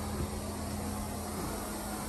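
Carpet-cleaning machine running with a steady, even hum and a constant low tone.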